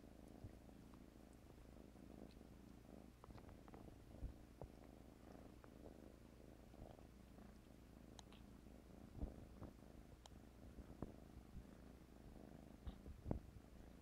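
A domestic cat purring faintly and steadily, with a few brief soft clicks and rustles scattered through.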